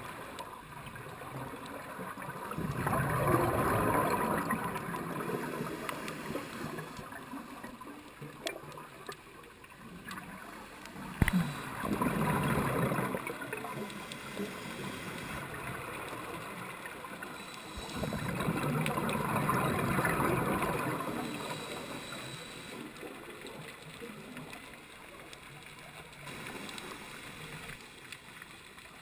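A scuba diver's exhaled bubbles rushing out of the regulator, heard underwater. They come in three long swells about eight seconds apart, with a quieter steady hiss between them.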